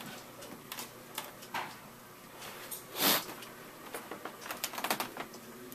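Soft scattered clicks and light knocks with one brief rustle about three seconds in: handling noise and footsteps as the camera is carried through a room.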